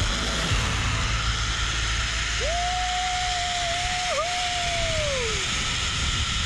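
Steady rush of a waterfall, with a low rumble for the first second and a half. Midway, a single long whistling tone rises, holds for about three seconds with a short dip, and falls away.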